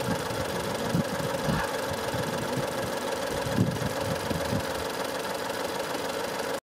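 A Ford Escape's four-cylinder engine idling roughly, with uneven low thumps and a shaking rattle. It is misfiring on cylinder four (code P0304), so one cylinder is not firing properly.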